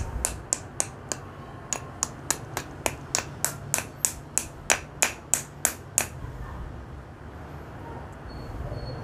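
Small hammer tapping a dark red garnet held on a stone, about twenty sharp clicks at roughly three a second, stopping about six seconds in. The blows are breaking the garnet into pieces.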